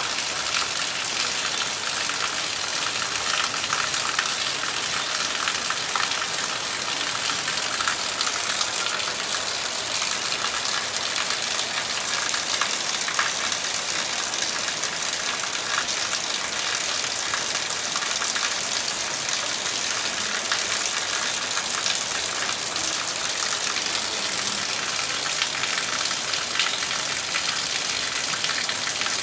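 Heavy rain falling steadily on leaves and ground: an even hiss of dense, fine pattering drops, with no thunder.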